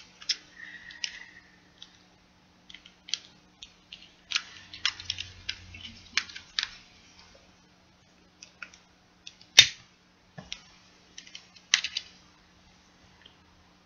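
Clicks and snaps of a long utility lighter being handled and sparked: a scatter of sharp clicks, with one much louder snap about nine and a half seconds in and a quick cluster of clicks shortly before the flame is lit.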